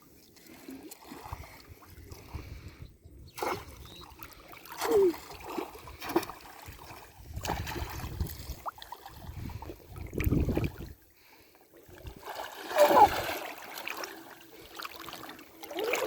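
Irregular splashing and sloshing in shallow pond water, with a few sharp knocks and splashes spaced seconds apart.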